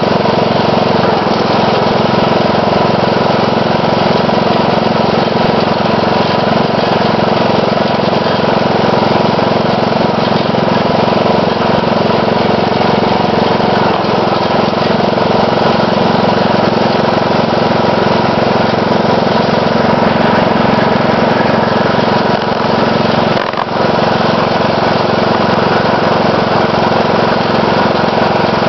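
Riding lawn mower's 12.5 hp Briggs & Stratton single-cylinder engine running steadily while the mower drives along a road, loud and close. The level dips briefly about 23 seconds in.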